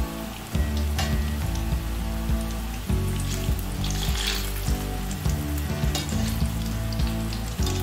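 Breadcrumb-coated potato cheese balls deep-frying in hot vegetable oil: a steady sizzle with a crackle of small pops, as a wire skimmer stirs and turns them in the pan. The sizzle swells briefly about four seconds in.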